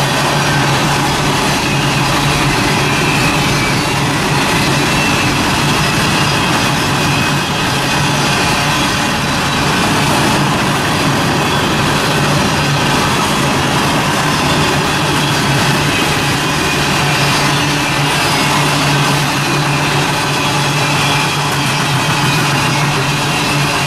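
Freight train passing, a loud steady rumble with a low diesel engine hum running under it.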